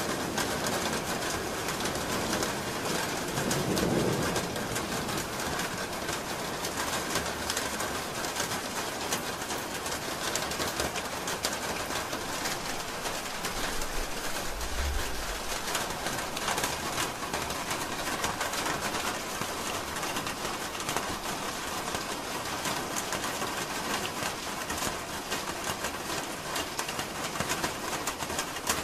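Steady rain falling on a roof, a dense hiss of many small drop impacts. There is a brief low sound about four seconds in and a short deep rumble about halfway.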